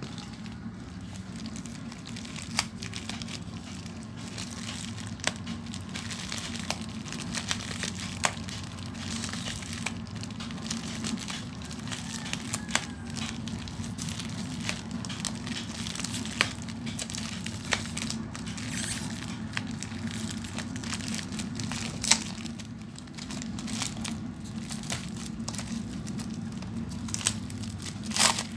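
Parcel packaging being handled and torn open by hand: crinkling and rustling wrapping with sharp crackles scattered throughout, the loudest cluster near the end, over a steady low hum.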